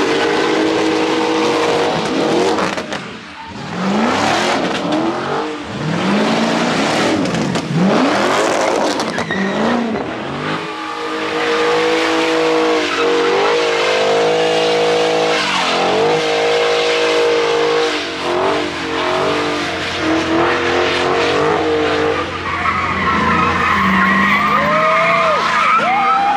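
Car engine revving hard, its pitch rising and falling again and again and held high for a few seconds midway, with tires squealing and skidding as the car spins on the pavement.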